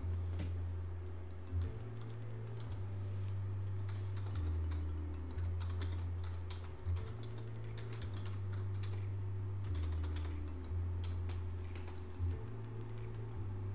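Typing on a computer keyboard: irregular key clicks, densest in the middle, over a loud low hum that steps up and down in pitch every second or so.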